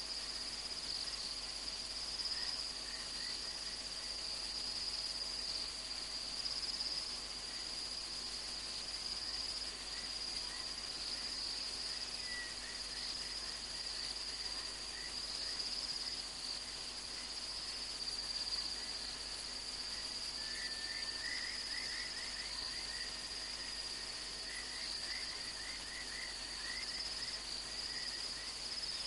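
Night insect chorus: a continuous high-pitched cricket trill. A second, lower series of rapid chirps joins about two-thirds of the way in.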